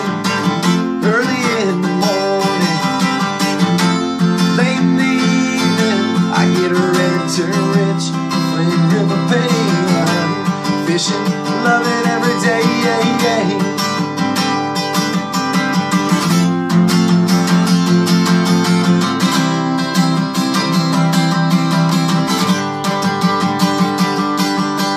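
Capoed acoustic guitar strummed steadily in a country rhythm, with a man's singing voice over it, mostly in the first half.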